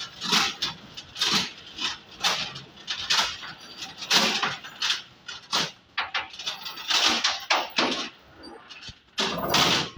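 Asian elephant making a series of short, breathy bursts, roughly one a second.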